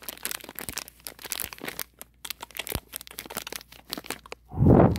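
Crinkly plastic surprise-bag packaging being squeezed and rustled by hand close to the microphone, a quick irregular crackling done on purpose as ASMR. A louder muffled bump or rub comes near the end.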